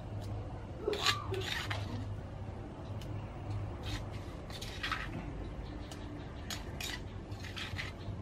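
Pestle grinding and knocking in a mortar: irregular strikes and rasping scrapes, a few seconds apart, as ingredients are pounded.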